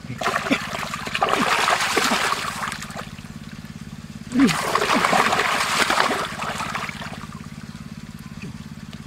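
Shallow ditch water splashing and sloshing in two bursts, each about three seconds long, the second starting about four seconds in.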